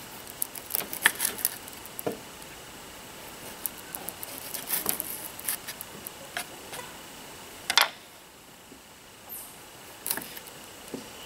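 Knife cutting and trimming baby onions on a wooden cutting board: irregular clicks and knocks of the blade on the board, a few louder strikes about a second in and again near 8 seconds.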